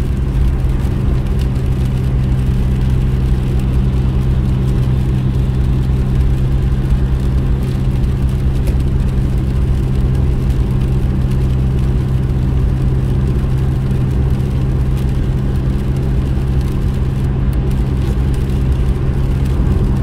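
Steady in-cabin drone of a car driving at motorway speed, its engine hum and tyre noise on the wet road running evenly without change.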